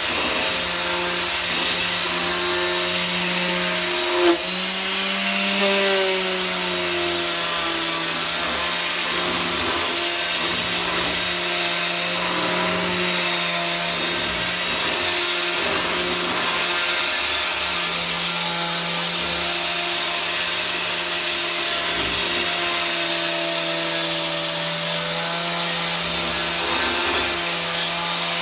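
Electric power sander running steadily while sanding a walnut sign, its motor hum over a hiss of abrasion. About four seconds in there is a short knock, and the motor's pitch briefly rises before settling again.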